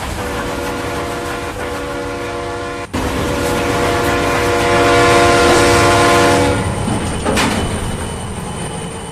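A locomotive's horn sounding in two long held blasts, broken by a sharp cut about three seconds in, over the steady rumble of a running train. After the second blast the horn stops and the train noise swells briefly, with one sharp click, then fades.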